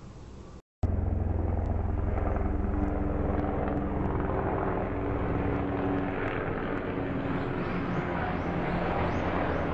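Helicopter flying low nearby: a loud, steady drone with deep low-pitched rotor and engine energy. It starts abruptly about a second in.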